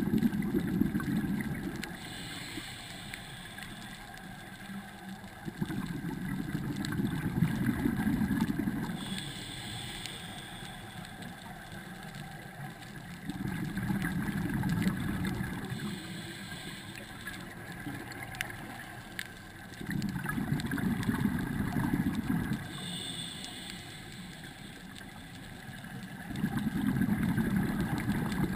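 Scuba diver's regulator breathing heard underwater: five bubbly rumbles of exhaled air, each two to three seconds long and about six to seven seconds apart, each followed by a brief fainter hiss of inhalation through the regulator.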